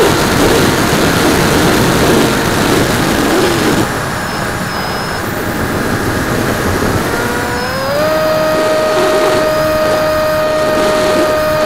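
Wind rushing over the microphone of a camera mounted on a Bixler 2 RC plane, then, about seven seconds in, the plane's electric motor and propeller rise in pitch and settle into a steady whine as it is throttled up.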